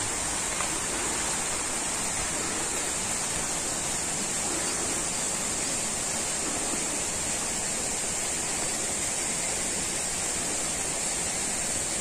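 Steady rushing of water, even and unbroken, with a constant high-pitched hiss on top.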